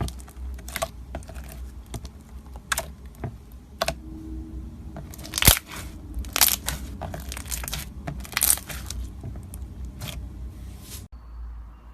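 Slime being pressed and worked by hand, giving irregular crackles and sharp pops, with the loudest pops about five and a half, six and a half and eight and a half seconds in. Near the end it cuts to a quieter, softer handling sound.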